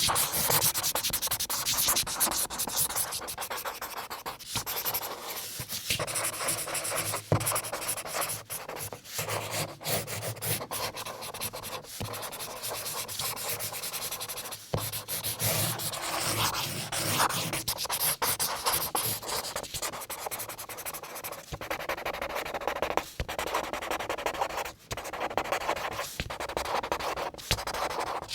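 Felt-tip marker drawing on paper: a continuous series of scratchy, squeaky strokes of varying length, with brief pauses between some of them.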